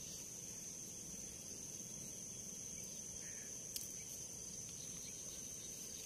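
Faint, steady high-pitched trill of insects in a field, with a single small tick a little before the four-second mark.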